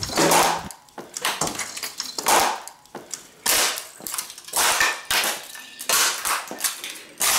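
Christmas tree ornaments being stomped on and smashed against a tile floor: a quick series of sharp cracks and pops, roughly two a second.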